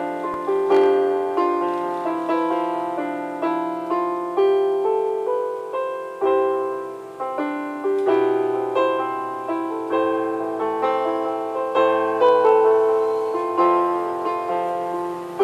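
Electronic keyboard played with a piano voice: a slow melody struck note by note over held chords and a bass line in the left hand, each note fading after it is struck.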